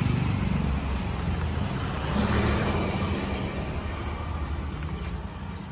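Motor vehicle engine running steadily under a constant rush of road and wind noise.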